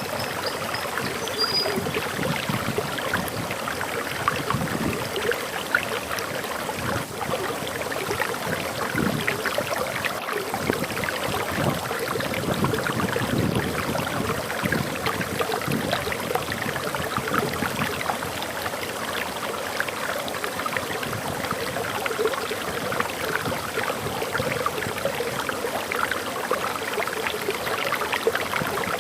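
Forest waterfall: water falling and splashing in a steady rushing noise.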